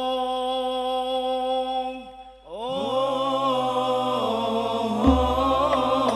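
Solo male voice singing long, drawn-out held notes through a microphone, the unaccompanied opening of an al-Banjari sholawat, with a short breath between phrases about two seconds in. A lower sustained backing tone joins about three seconds in, and deep drum strokes and taps come in near the end.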